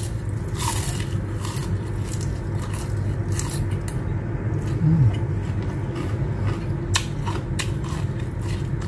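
Close-up chewing of fried shrimp tempura eaten with the shells left on: many small crunchy crackles and wet mouth sounds, over a steady low background hum.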